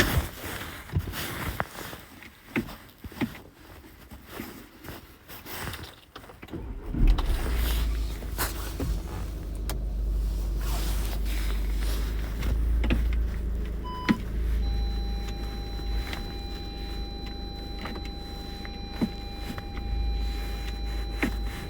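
Scattered clicks and handling noises, then the VW Sharan's engine starts about a third of the way in and runs at idle with a steady low hum. About two-thirds in a short electronic beep sounds, followed by a steady high warning tone that keeps going.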